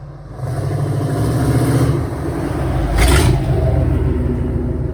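1990 Chevy Silverado K2500's 350 (5.7 L) small-block V8 accelerating, its engine note building over the first couple of seconds, with a louder rushing surge about three seconds in.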